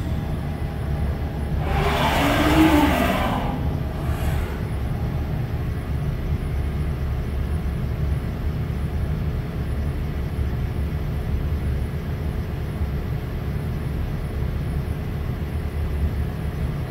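Haas VF-6's trunnion rotary table tilting on its A axis under servo drive, over a steady low machine hum. About two seconds in a motor sound swells for a couple of seconds, its pitch rising then falling, with a shorter burst about a second later.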